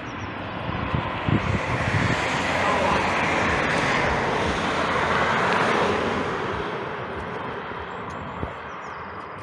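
A vehicle passing close by: its engine and road noise swell over a couple of seconds, peak in the middle and fade away.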